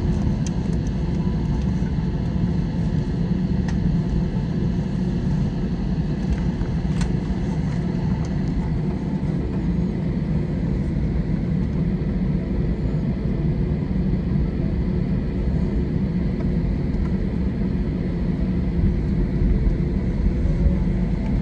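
Cabin noise inside an Airbus A321 taxiing after landing: a steady low rumble from the engines and rolling wheels, with a faint steady whine above it.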